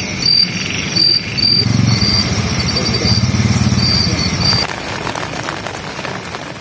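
Night insects chirping: a high, steady trill in broken pulses, with a low rumble underneath. The chirping stops about four and a half seconds in, and what is left fades away near the end.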